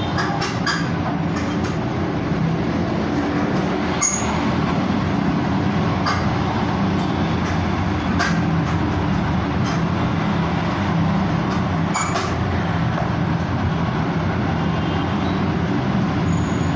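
Steady street traffic noise: engines running with a continuous low rumble as motor scooters pass, with a few sharp clicks along the way.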